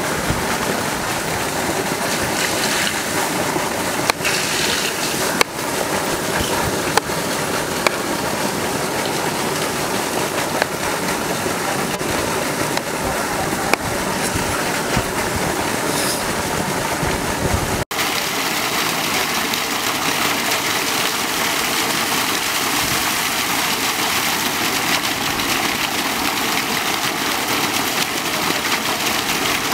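A steady rushing noise throughout, with a few sharp taps of a kitchen knife cutting vegetables on a plastic cutting board. The noise changes abruptly about eighteen seconds in.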